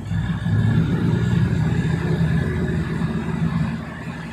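Passenger train running along the track, heard from inside the carriage: a steady low rumble of the engine and wheels.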